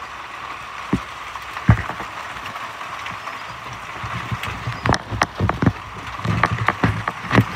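Steady hiss of a hailstorm, with hailstones striking hard surfaces in sharp knocks that come more often in the second half.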